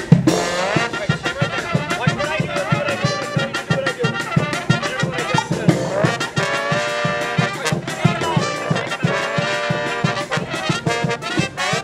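Marching brass band playing: trumpets, trombones and sousaphones over a steady drum beat.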